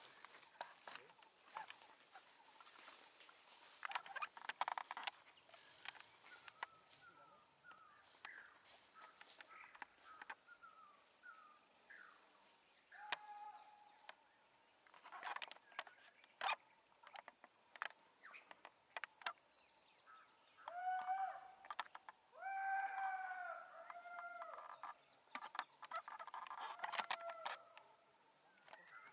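Faint forest ambience: a steady high-pitched insect drone, bird calls (a run of short chirps, then several longer calls in a row later on), and occasional snaps and rustles of twigs and brush.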